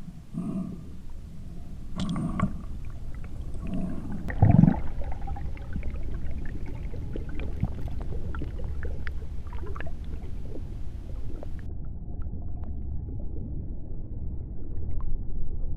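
Underwater sound recorded by a spearfisher's camera: a steady low rumble with scattered faint clicks. In the first few seconds come four short, muffled gurgling bursts, the loudest about four and a half seconds in.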